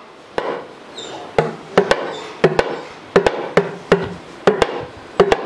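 Small rope-laced two-headed hand drum beaten by hand in an uneven folk beat, about fifteen sharp strokes, several in quick pairs, each with a short low ring.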